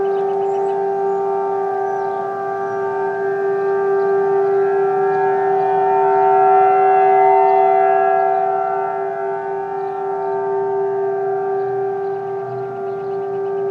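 Several outdoor civil-defense warning sirens sounding together on a steady alert tone during a siren test, their overlapping pitches holding level. The sound swells louder around the middle and eases off again.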